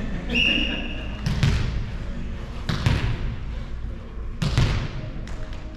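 A referee's whistle blows once, a steady high tone of about a second. Then a volleyball thuds three times, about a second and a half apart.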